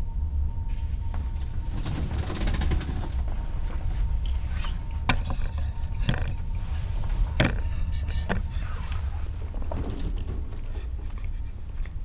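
Steady low rumble heard from inside a ship's cabin, with scattered sharp clicks and a brief rattle about two seconds in.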